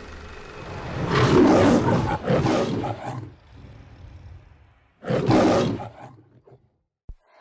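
The Metro-Goldwyn-Mayer logo lion roaring: a long roar about a second in, then a shorter second roar a few seconds later.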